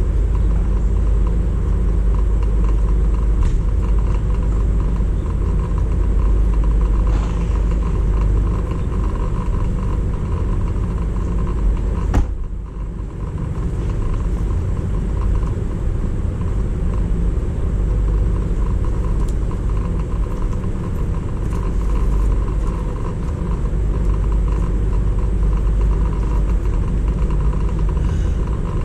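Steady low rumble of a running vehicle, with one sharp click about twelve seconds in, after which the rumble briefly drops.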